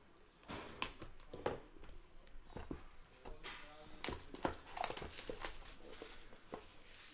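Hands handling a cardboard trading-card box and then tearing and crinkling the plastic wrapper of a card pack, heard as a run of sharp crackles and taps that is busiest a few seconds in.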